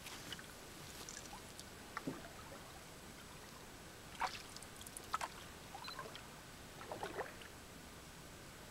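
Canoe paddles dipping and pulling through calm water, faint, with a few short splashes and drips a second or two apart.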